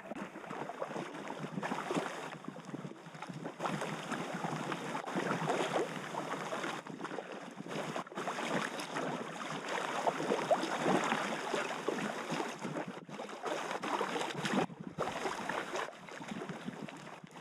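River water rushing and splashing around a packraft running down a rocky river stretch.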